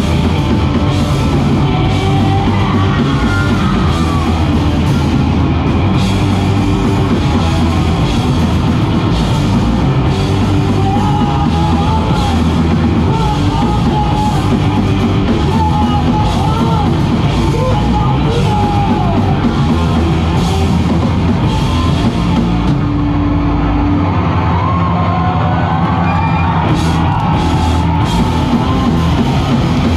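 Live punk band playing loud: distorted guitars, bass and drum kit under shouted vocals. The deepest bass and cymbal wash thin out for a few seconds after the middle.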